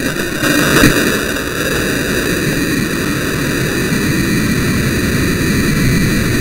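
H115DM solid-propellant rocket motor firing at lift-off: a loud, steady rushing hiss of the sparky exhaust that comes up suddenly as it ignites, peaking about a second in.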